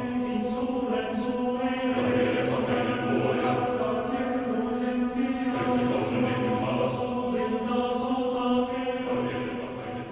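Choral chant music: voices singing long held notes, the harmony shifting every few seconds, with short hissing consonants now and then.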